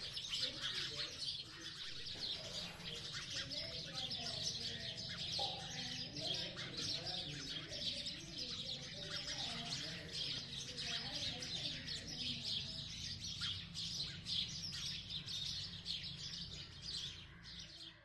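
A flock of sparrows chirping continuously, many short overlapping chirps from different birds at once.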